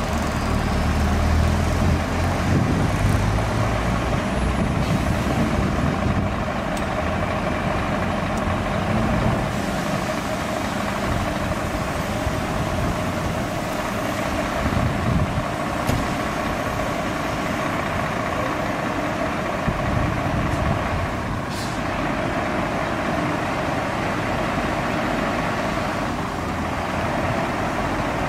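Heavy diesel engines of Scania fire trucks running steadily at idle and low speed, with no siren sounding.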